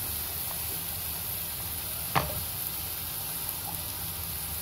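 Onions frying in oil in a pan, a steady sizzle, under the soft sound of a hand mixing chopped snake gourd and ground chana dal in a bowl. A single sharp click about two seconds in.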